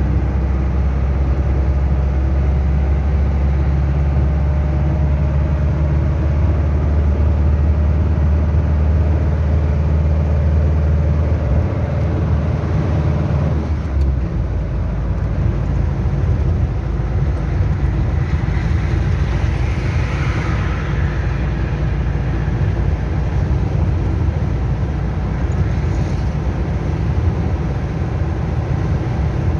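Chevrolet D-10 pickup's turbo diesel engine running with a steady low drone that changes about halfway through, when the deepest part of the drone drops away. The sound is recorded to show a strange noise the owner hears from this engine.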